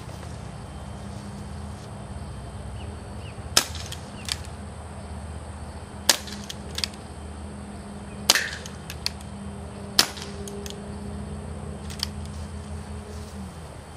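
UHC green gas airsoft revolver firing single shots at a can: four sharp pops about two to two and a half seconds apart, with fainter clicks between them. A steady low hum runs underneath and stops near the end.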